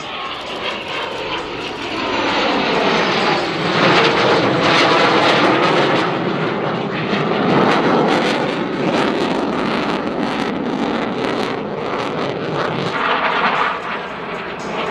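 CF-18 Hornet's twin General Electric F404 turbofans running in afterburner: a loud jet roar that sweeps down in pitch over the first couple of seconds, swells about two seconds in, and crackles through the middle.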